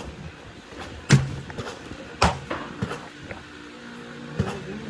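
Rifle shots, most likely an AR-15 being fired: two sharp reports about a second apart, then a fainter one.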